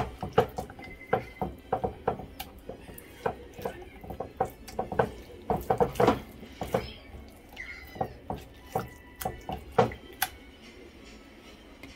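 Hands mixing and turning raw chicken pieces with spices in a clay tagine: wet squelches and slaps with irregular knocks of the meat against the earthenware. The handling stops about ten seconds in.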